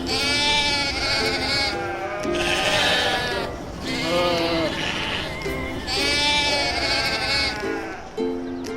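Four long, wavering bleats of a sheep or goat, about two seconds apart, over light background music of short plucked notes.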